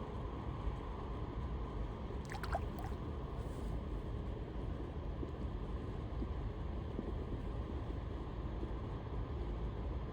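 Steady rushing of river water with wind buffeting the microphone, heaviest at the low end. A brief cluster of sharp, high sounds about two and a half seconds in.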